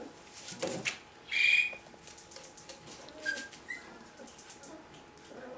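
Four-week-old Rhodesian Ridgeback puppies whining: one loud, high-pitched whine of about half a second about a second and a half in, then two short, high chirps around the three-second mark, over a light clicking.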